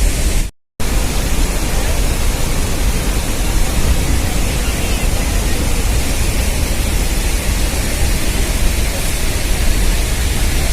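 Steady, loud roar of a waterfall, cut by a split-second dropout just after the start.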